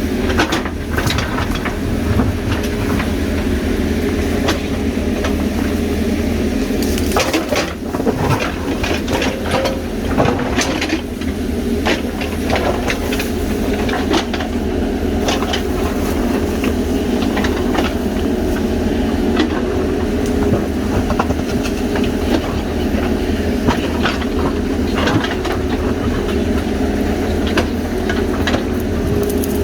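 JCB backhoe loader's diesel engine running steadily, with frequent sharp clanks and crunches of soil and stones as the machine works the ground.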